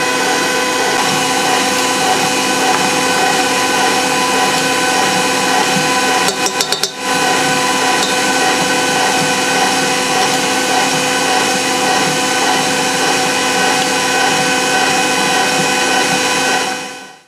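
KitchenAid Professional HD stand mixer running steadily, its motor and gears whining as the beater mixes flour in the steel bowl. A few clicks briefly break the sound about six seconds in, and it fades out near the end.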